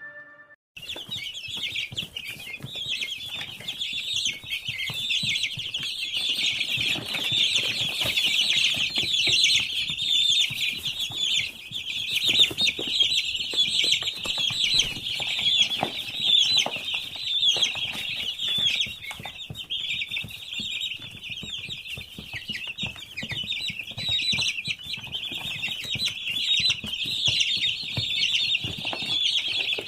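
A large flock of eight-day-old chicks peeping together in a dense, continuous chorus of high cheeps, with scattered small clicks.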